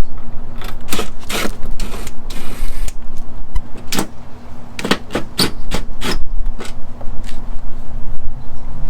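Irregular clicks, knocks and a short scrape as fasteners are worked loose from a pickup's plastic wheel-well liner, with a faint steady hum underneath.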